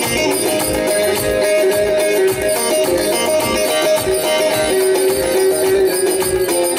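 Instrumental passage of a Turkish folk song: a bağlama (long-necked saz) plays with held melody notes over a steady, evenly repeating low beat and shaker-like percussion.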